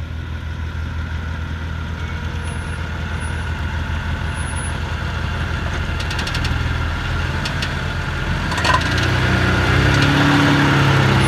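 2011 Jeep Wrangler JK's 3.8-litre V6 engine running at low crawling revs, growing steadily louder as the Jeep drives up and over a rock crack, heard from beneath the vehicle. A few light clicks come in the middle, then one sharp knock, after which the engine is at its loudest.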